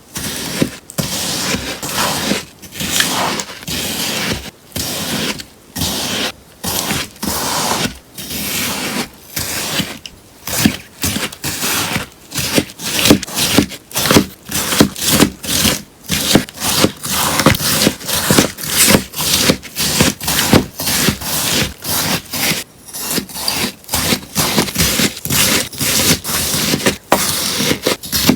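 Scissors cutting through a sponge in a long run of crisp snips, about one cut a second at first and quickening to about two a second from about ten seconds in.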